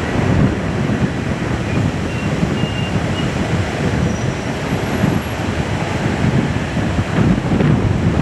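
Airbus A380's four Rolls-Royce Trent 900 turbofans running at taxi thrust, a steady low rumble with a faint high whine, mixed with wind buffeting the microphone.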